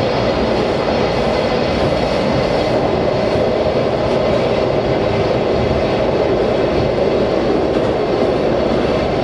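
Washington Metro Red Line train running steadily, heard from inside the front car: a continuous rumble of wheels on rail with a faint steady whine above it.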